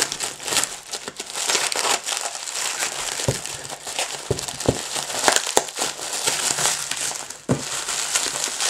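Plastic parcel wrapping and packing tape crinkling and rustling as the parcel is cut with scissors and pulled open by hand, with a few low thumps as it is handled.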